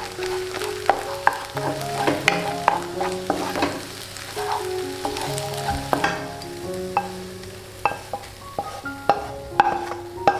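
Wooden spatula stirring and scraping scrambled egg in a non-stick wok, the egg sizzling, with many short knocks of the spatula against the pan. Soft melodic background music plays underneath.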